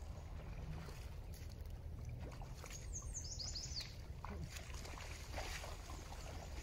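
Water splashing and sloshing in shallow river water as an angler wades and handles a hooked sturgeon at the edge, over a steady low rumble. A bird gives a quick run of high, descending chirps about three seconds in.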